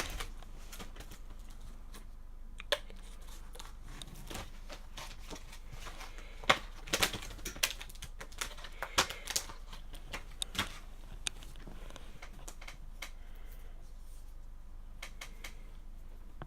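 Irregular light clicks and taps of cables and plastic parts being handled inside a computer case. The loudest click comes about six and a half seconds in, and a cluster follows over the next few seconds, over a steady low hum.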